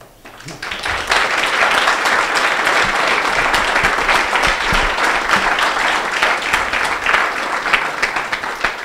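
Audience applauding, the clapping swelling over the first second, holding steady, and dying away near the end.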